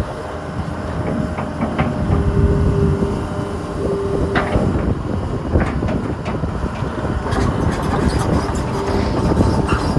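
Sumitomo SH200 hydraulic excavator running, a steady engine rumble with scattered metallic clanks and knocks and a short whine that comes and goes.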